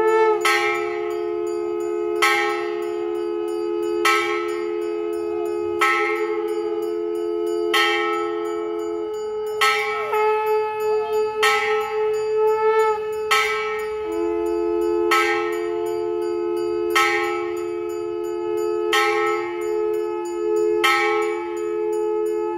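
A temple bell rung for arati, struck at a slow even pace about once every two seconds, each stroke ringing on as it fades. Two steady held tones sound underneath; the lower one stops for about five seconds midway.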